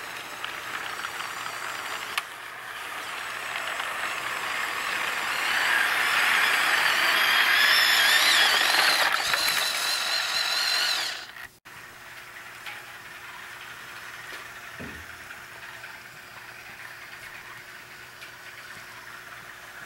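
HO scale model train running past on the track, a steady rolling rattle of cars with the model diesel locomotive's motor whine growing louder and wavering as it comes close. About eleven seconds in the sound drops off abruptly to a fainter steady rolling.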